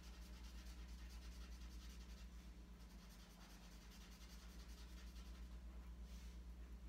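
Marker pen rubbing on paper in short strokes as it colours in, faint, over a steady low hum.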